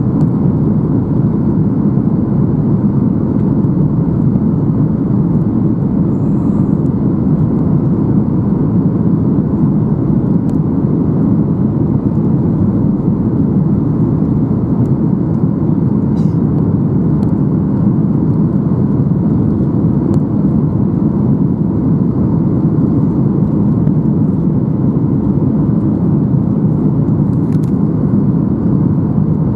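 Steady cabin rumble inside a Boeing 737-800: its CFM56-7B engines and the airflow over the fuselage, even and unbroken, with a few faint ticks.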